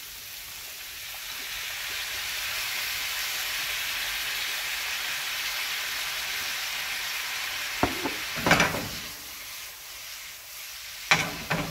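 Stir-fry vegetables sizzling in a hot skillet as soy sauce is poured in, the sizzle swelling over the first couple of seconds and holding steady. A few sharp clanks about eight seconds in and again near the end as the pan is lifted, tossed and knocked against the gas grate.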